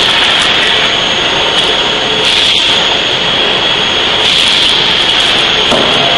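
C92K-16 kJ CNC hydraulic die forging hammer running while forging a bearing ring: a loud, steady high-pitched whine over hiss, with no distinct hammer blows standing out.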